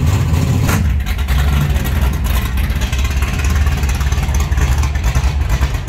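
Deep, steady rumble of a car engine running close by.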